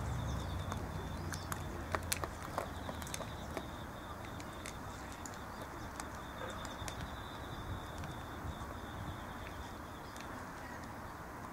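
Cats eating from plastic trays, with scattered small clicks and smacks of chewing and lapping, the loudest about two seconds in. A steady high trill goes on behind it, and a low rumble fades out over the first couple of seconds.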